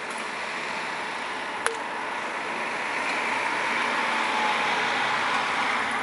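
A vehicle passing, its noise swelling over the second half, with one sharp click a little under two seconds in.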